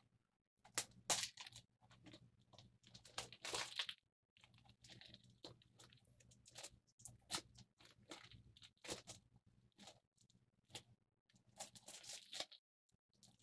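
Plastic shrink wrap being torn and peeled off a Blu-ray case, crinkling and crackling in irregular bursts.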